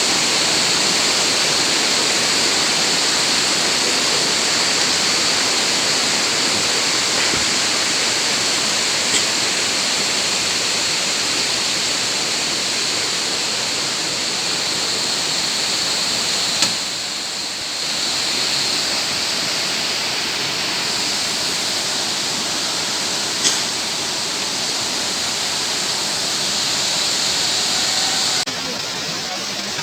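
Steady rushing of a waterfall's falling water, with a few brief clicks, and an abrupt drop in the sound near the end.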